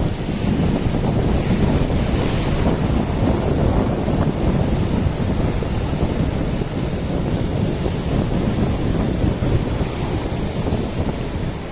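Wind buffeting the microphone in steady gusts, with sea surf washing behind it.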